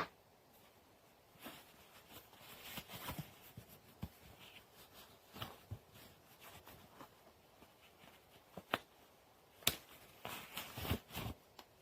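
Scattered light clicks and rustles of a guitar capo and its packaging being handled, with a sharper click near the end.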